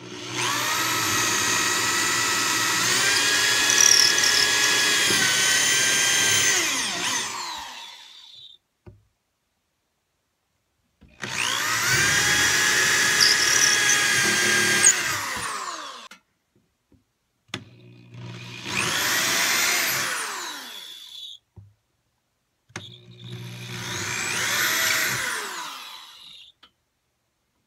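Corded DeWalt electric drill boring holes into a wall, four separate runs of motor whine. The first two runs are longer and steady; the last two are shorter, with the pitch rising as the trigger is squeezed and falling as it is released.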